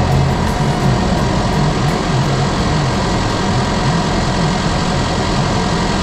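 Tractor engine running steadily under load, with a low, slightly wavering hum.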